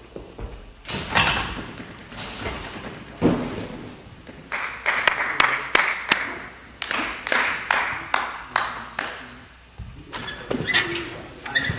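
Irregular thuds and knocks from activity in a gymnastics hall, coming thick and fast for several seconds in the middle.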